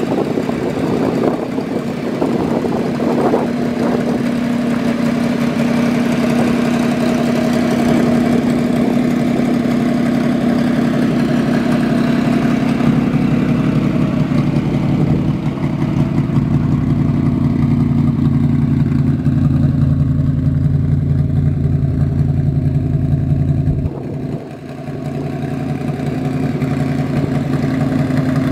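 3.5-litre Buick (Rover) V8 of a RAM AC Cobra replica idling steadily through its side exhaust pipes, with a brief dip in level near the end.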